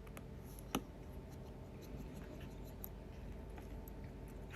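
Faint clicks and scratches of small repair tools handling the opened phone, with one sharp click about a second in, over a low steady hum.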